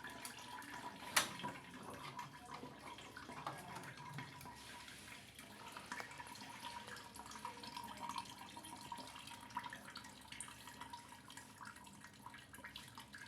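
Water trickling and dripping from the opened drain-pump filter of an LG washing machine, drained by hand because the machine would not pump it out. The sound is faint, with one sharp click about a second in.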